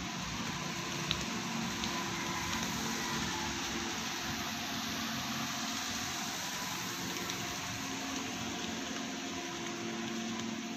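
Steady hum and rush of machinery running in a woodworking workshop.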